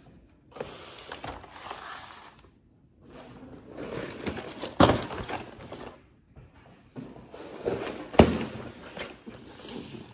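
Groceries being unpacked: cardboard boxes and plastic clamshell containers handled and set down on a kitchen counter, with irregular rustling and two sharp knocks, about five seconds in and eight seconds in.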